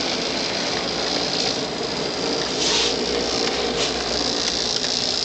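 O scale battery-powered radio-control 44-tonner model locomotive running, its motor and gear drive whirring steadily as it pushes a string of freight cars along the track, with a couple of short clicks.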